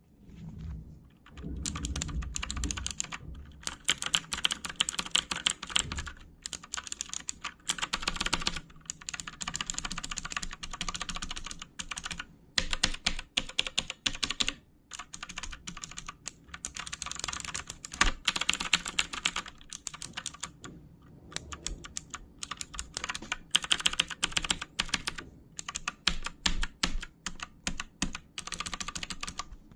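Mechanical keyboard with blue switches being typed on: fast runs of sharp, clicky keystrokes, broken by a few brief pauses.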